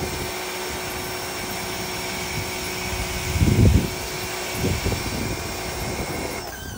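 Electric pump draining the pool, running with a steady whine, then cutting off shortly before the end. A couple of low thumps come about halfway through.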